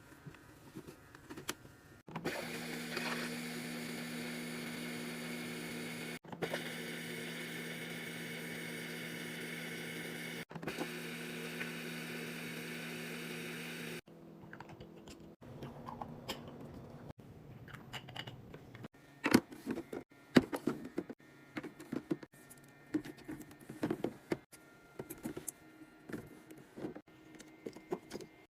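Items being handled and set down while restocking a mini fridge: a run of sharp, irregular clicks and knocks of plastic and packaging, loudest around the middle. Before it, for about twelve seconds, a steady electrical hum.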